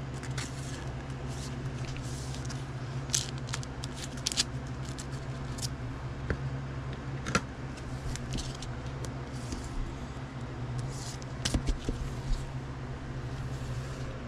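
Gloved hands opening a clear rigid plastic trading-card case and fitting a card into it: scattered clicks, taps and scrapes of hard plastic, over a steady low hum.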